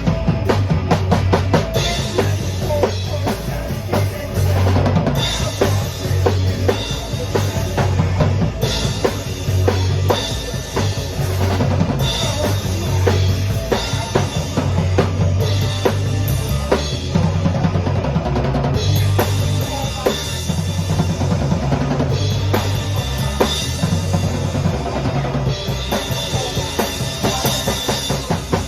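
A band playing a song with a drum kit keeping a steady beat over a low bass part, with cymbal-heavy passages coming and going every few seconds.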